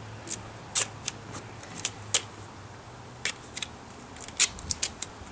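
Black duct tape being pulled off the roll and torn by hand: a series of short, sharp crackling rips.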